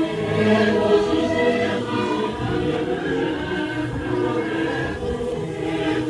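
Choral music: a choir singing long, held chords.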